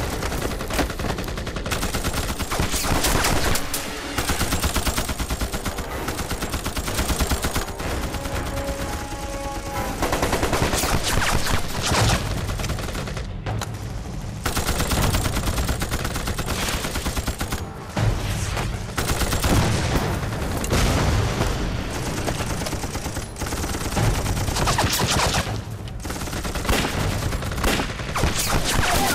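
Sustained battle gunfire: rapid rifle and machine-gun shots overlapping with no real pause, easing briefly a few times.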